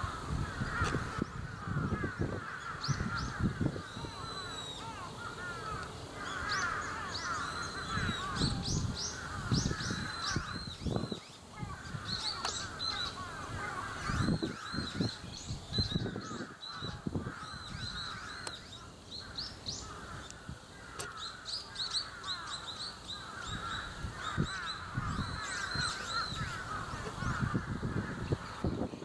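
Many birds calling at once: a dense chatter of overlapping short calls, with higher, thinner calls repeating over it throughout, and irregular low rumbles underneath.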